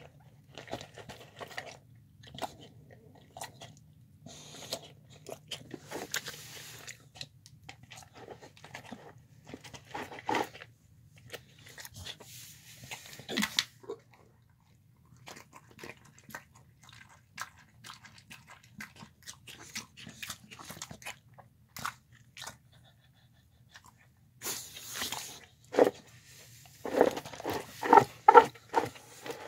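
A dog eating a soft meal of chicken, rice, spinach and lentils from a bowl: irregular wet chewing and smacking, with a louder run of quick chews near the end.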